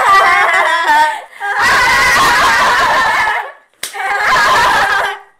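A group of young women laughing loudly together and shrieking, in three long bursts with short breaths between them.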